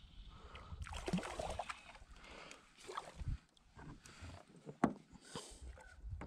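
Irregular rubbing, rustling and knocking from a fly rod and fly line being handled aboard a kayak. It includes a few sharp clicks, the loudest of them about three-quarters of the way through.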